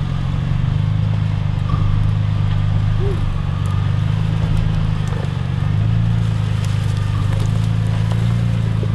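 Off-road Toyota truck's engine running at low revs, a steady low rumble, as the rig is driven slowly along a rocky trail. The pitch settles a little lower about six seconds in.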